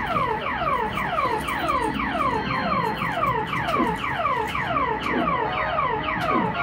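Fruit machine sound effect: a rapid, steady run of electronic tones, each sliding down in pitch, about four a second.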